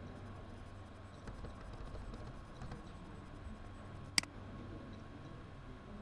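A single sharp computer mouse click about four seconds in, over a faint steady hum with a thin high tone in it.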